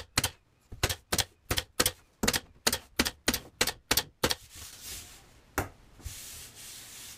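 Pneumatic 23-gauge pin nailer driving tiny headless stainless-steel pins into wooden planking. It fires in quick succession, about three shots a second for roughly four seconds, then once more after a pause.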